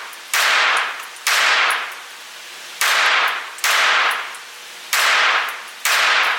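Glock 17 Gen 4 9mm pistol being fired, six shots at an irregular pace about a second apart. Each shot starts sharply and dies away with a long echoing tail.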